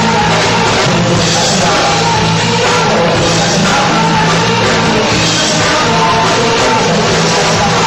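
Live rock band playing loud, with drums, electric guitar and keyboards under lead vocals.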